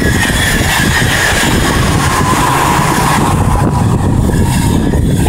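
NS ICMm intercity electric multiple unit passing close by at speed: a steady, loud rolling and rushing noise of the train, with a whine that falls in pitch over the first three seconds.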